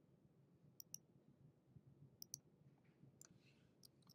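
Faint clicks of a computer mouse, some single and some in quick pairs, over near-silent room tone.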